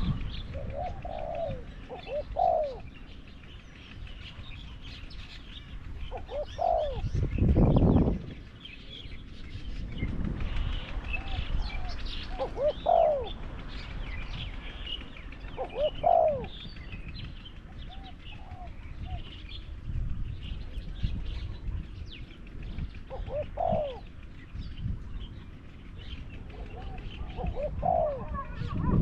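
Spotted doves cooing: a short multi-note phrase around 500 to 800 Hz, repeated every few seconds, as a caged decoy dove calls against a wild one. Small birds chirp faintly in the background, and a brief low rumble about eight seconds in is the loudest sound.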